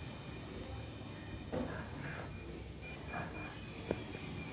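Digital clinical thermometer beeping: quick groups of four high beeps, about one group a second, the signal that it has finished a reading, here a fever of 39.2 °C.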